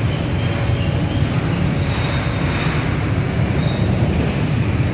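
Steady, loud, low rumble of road traffic, with motorcycles passing through the underpass beneath the railway bridge.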